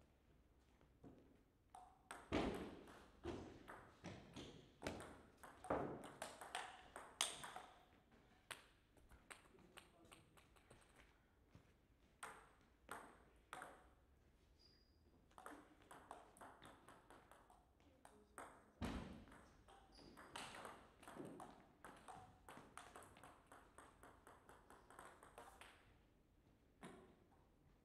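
Table tennis rallies: the ball clicks sharply off the paddles and bounces on the table in quick strings of clicks, with short pauses between points.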